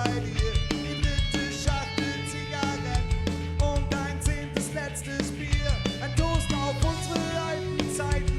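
Ska-punk band playing live: drum kit and guitars keep a steady beat through an instrumental stretch of the song.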